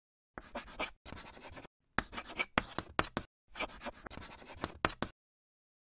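Chalk scratching on a blackboard as writing, in three runs of short quick strokes that stop about five seconds in.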